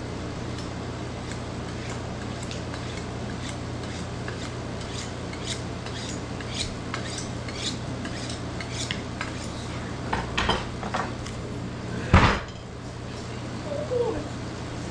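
Butcher's knife clicking and scraping against bone and the cutting surface while a bear's front shoulder is cut off, many small sharp ticks with a few louder clicks, and one loud knock about twelve seconds in. A steady low hum runs underneath.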